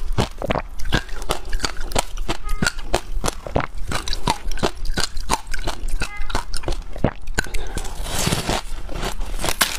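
Snowy freezer frost crackling and crunching as a chunk is handled and squeezed in the hands, a rapid run of sharp crackles. Near the end it is bitten and chewed, a thicker crunching.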